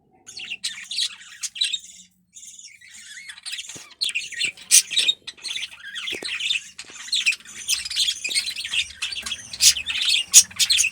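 Budgerigars chattering and squawking at close range, a dense, continuous run of chirps and squawks that starts just after the beginning.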